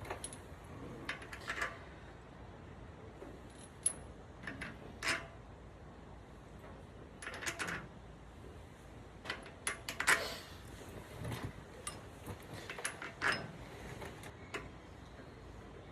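Scattered light metallic clinks and clatter of hand tools and small hub parts being handled, a dozen or so short sharp taps at uneven intervals.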